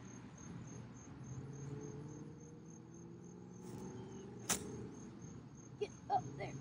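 Insects chirping steadily in a high, pulsing trill, cut through about four and a half seconds in by one sharp crack of a golf club striking the ball off the tee.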